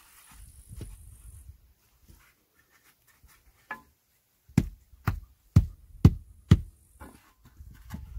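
A wooden board scraped over wet concrete, then a mallet giving about five knocks roughly half a second apart, tamping stones into a fresh concrete blind area.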